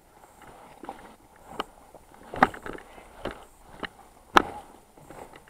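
Footsteps on gravel and broken concrete rubble at a walking pace, a short knock every second or so, with one sharper knock about four seconds in.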